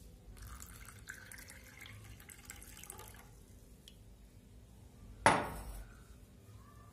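Water pouring from a glass jug into a small glass for about three seconds. About two seconds later comes a single sharp knock, the loudest sound.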